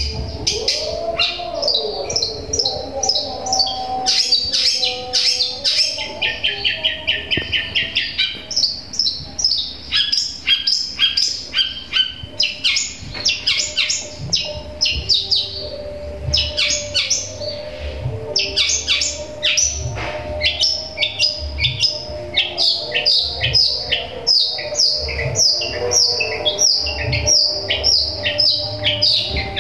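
Caged long-tailed shrike (cendet) singing a fast, unbroken run of short high chirps and quick trills, mimicking the chirping of a Eurasian tree sparrow.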